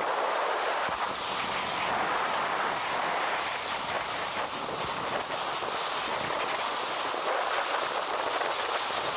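Strong wind blowing, a steady rushing noise with no break.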